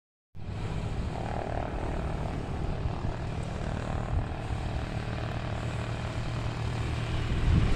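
Piper Seminole's twin piston engines and propellers running, a steady low drone.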